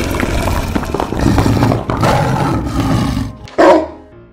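Cartoon animal roar sound effects over a busy mix, with one short, very loud roar about three and a half seconds in that quickly dies away.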